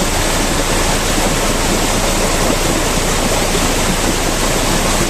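Loud, steady rush of floodwater pouring along the road after a heavy downpour.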